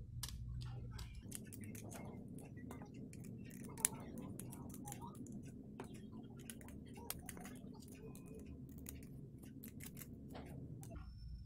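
Small irregular clicks and ticks of a screwdriver and fingers on a Baofeng BF-T1 handheld radio's circuit board and plastic casing as its screws are undone and the board is worked loose, with one sharper click about four seconds in.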